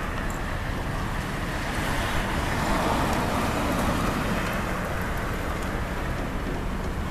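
Steady engine and road rumble heard from inside a slowly moving car. Another car's tyre and engine noise swells as it passes, loudest three to four seconds in, then fades.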